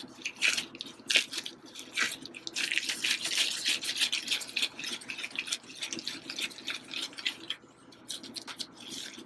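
Disposable plastic gloves crinkling, with soft squishing of coxinha dough, as hands roll a ball of it between the palms.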